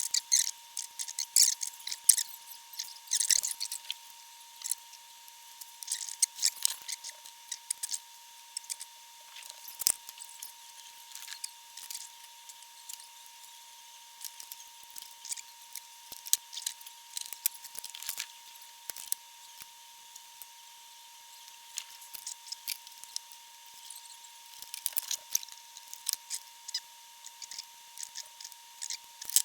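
Small hand tools working on a valve amplifier's metal chassis during re-capping: irregular clicks, snips and scrapes, busiest in the first few seconds and again near the end. A steady high-pitched tone runs underneath.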